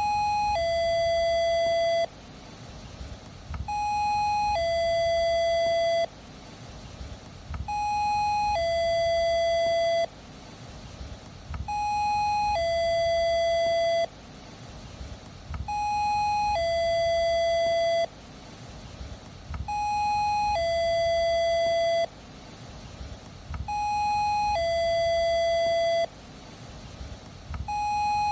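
Electronic two-tone doorbell chime, a short higher 'ding' followed by a longer lower 'dong', repeating every four seconds, about seven times. Each ring cuts off abruptly, and a faint low rumble fills the gaps between rings.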